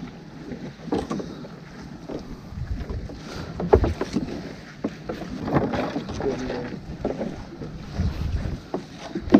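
Irregular knocks and water sloshing from a small open boat at sea, with wind buffeting the microphone; no engine is running.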